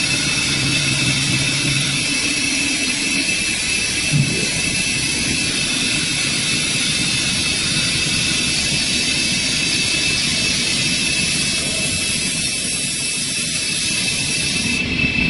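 A four-head CNC wood copy lathe running and cutting wooden spindles, giving a steady, loud machine noise with a constant high whine.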